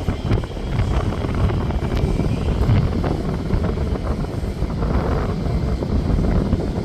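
Jet airliner engine noise, a steady low rumble, mixed with wind buffeting the microphone.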